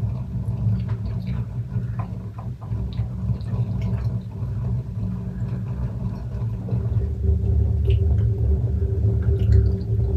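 A steady low rumble with a faint hum running through it, and a few faint, light clicks scattered over it.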